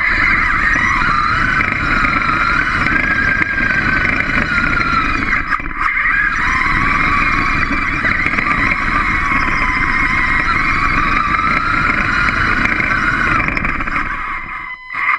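Small robot's electric drive motors running with a wavering whine that rises and falls with speed, over a low rumble of its wheels and gears on a hard floor. The sound eases briefly about six seconds in and again near the end.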